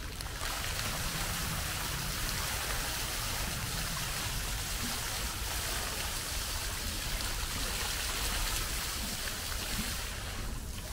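Steady rush of running water, with a low rumble underneath.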